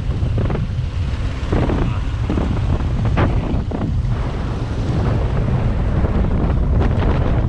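Heavy wind buffeting an action camera's microphone during a motorcycle ride, a loud low rumble that covers almost everything else.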